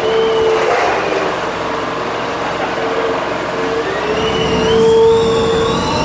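Typhoon wind whistling through a building: a steady, shrill whistle and a higher tone that rises and falls, over a constant roar of wind, growing louder about five seconds in.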